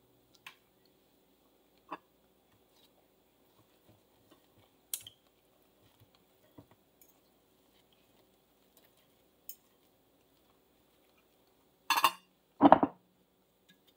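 Fork and knife clicking and scraping lightly on a plate as pancakes are cut, in scattered small taps. Near the end come two much louder clattering knocks in quick succession.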